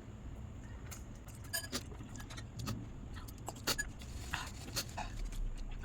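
Eating noodles: irregular small clicks and clinks from mouth and utensils, over a low steady hum.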